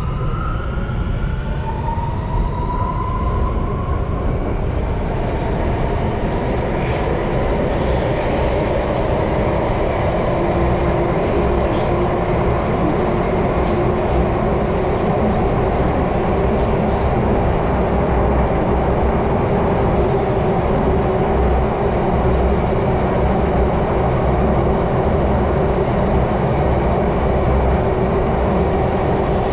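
Singapore MRT train pulling away from a station, heard from inside the carriage. The traction motors' whine rises in pitch over the first few seconds as the train accelerates. It then settles into a steady rumble of wheels on rail as the train runs through the tunnel.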